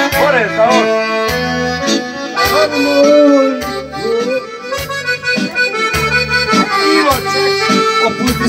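Live Serbian folk music led by an accordion playing an ornamented melody, with bass notes pulsing underneath.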